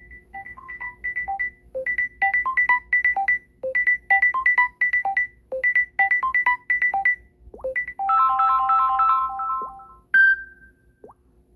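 Electronic ringtone melody of short, clean beeped notes in a repeating tune. Near the end it breaks into a fast warbling trill, then a single chime.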